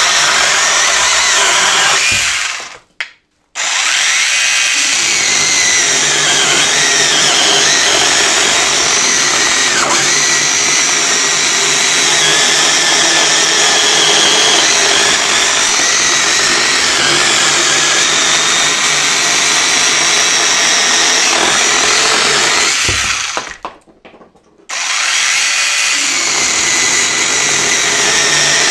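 Hychika 18 V one-handed cordless chainsaw with an 8-inch bar cutting through a log, its electric motor whining steadily as the chain chews the wood. The motor winds down and stops briefly twice, about three seconds in and again about twenty-three seconds in, then starts up again.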